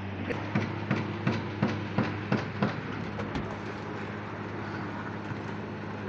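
Concrete pumping equipment running with a steady engine hum, and a quick run of about eight knocks, roughly three a second, that stops about three seconds in.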